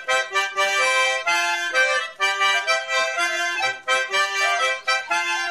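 Background music: a tune played on accordion, one held note after another with short breaks between them.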